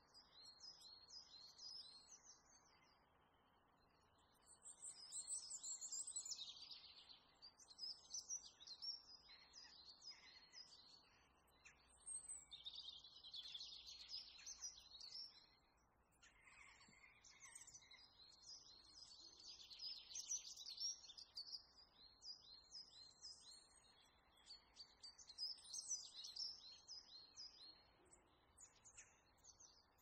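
Songbirds singing, phrase after phrase of quick repeated chirps and trills that sometimes overlap, over a faint steady hiss.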